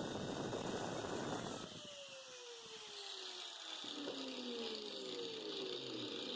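Electric grinder running, then switched off about a second in and spinning down, its whine falling steadily in pitch for several seconds.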